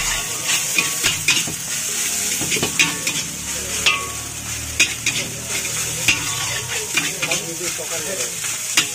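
Fried rice being stir-fried in a large wok: a metal spatula scrapes and clanks against the pan in irregular strikes about once a second over a steady sizzling hiss.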